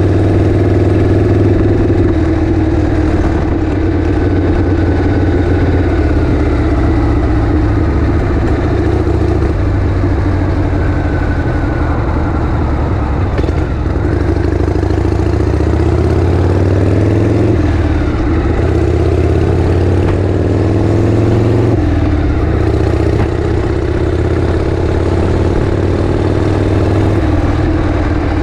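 Harley-Davidson Shovelhead V-twin engine running. Twice in the middle the engine speed climbs and then falls away suddenly.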